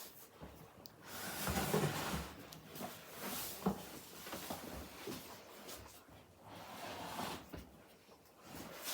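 A heavy upholstered armchair being handled and tipped over onto its back: irregular rustling and scraping with a few short knocks.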